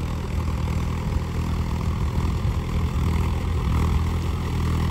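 Tractor's diesel engine running steadily with an even low hum.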